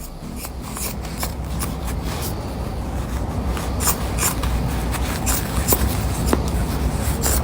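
Rustling and scraping with many scattered short clicks over a steady low rumble, like something being handled close to the microphone.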